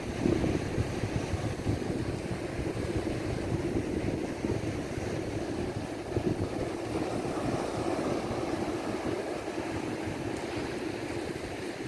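Strong wind buffeting the microphone in an uneven low rumble, over the steady wash of ocean surf breaking on the beach.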